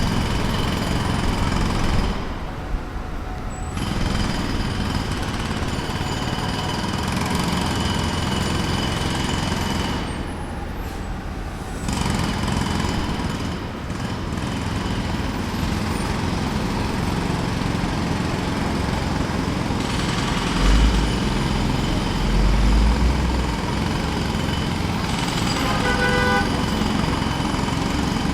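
Distant pneumatic jackhammer breaking up the ground, running in long spells that let up briefly twice, amid street traffic. A short horn-like toot sounds near the end.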